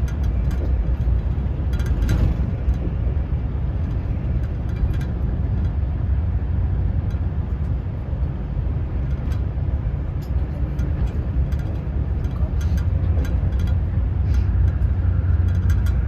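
Passenger train running: a steady low rumble with scattered light clicks and rattles.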